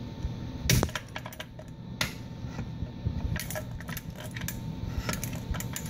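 Metallic clicks and clinks of vise grips clamped on a hot tub pump motor's shaft as the shaft is cranked clockwise to free a rust-seized impeller: two sharp clicks, then a run of quicker clicks over the last couple of seconds.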